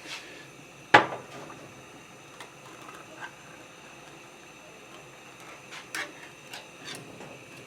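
Kitchen utensils knocking: one sharp knock about a second in, then a few light taps near the end.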